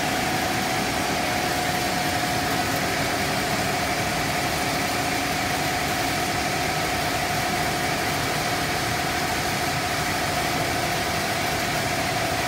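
Cast stretch film extrusion line running: steady industrial machine noise, an even hiss with a constant mid-pitched whine over it.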